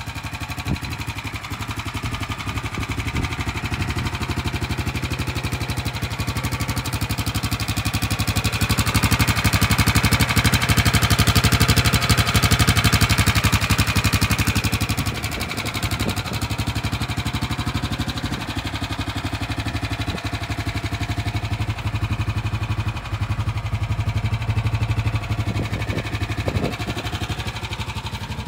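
Small 301cc single-cylinder gasoline engine of a converted utility cart running steadily at idle. It is louder for a few seconds in the middle, when heard close up at the engine under the rear of the cart.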